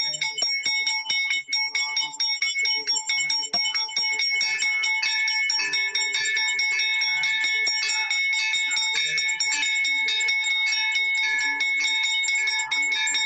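Temple bells ringing rapidly and without pause for aarti: many strikes a second over a steady ring.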